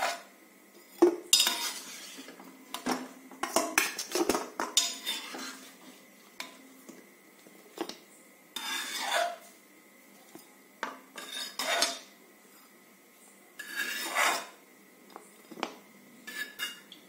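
Metal spoon clinking and scraping against a pressure cooker and a steel plate while boiled raw tamarind pods are scooped out: irregular clinks with a few longer scrapes.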